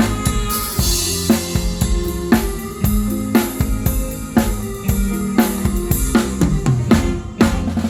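Live band playing an instrumental passage of a Thai luk thung song, a full drum kit of kick, snare and cymbals keeping the beat over bass and other instruments. A cymbal crash rings out about half a second in.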